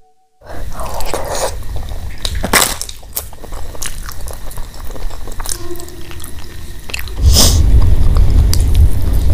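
Close-miked eating by hand: chewing, lip smacks and wet squishing of mashed potato bharta and rice, starting about half a second in. A loud low rumble sets in about two seconds before the end.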